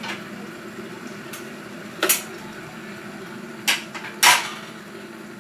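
Kitchen clatter: a few short, sharp knocks and clacks of things being handled, over a steady low hum. A faint one sounds near the start, a louder one about two seconds in, and the two loudest come close together near the end.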